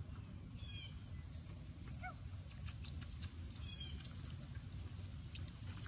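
Outdoor ambience: a steady low rumble with a few short, high bird chirps, once about half a second in and again near four seconds.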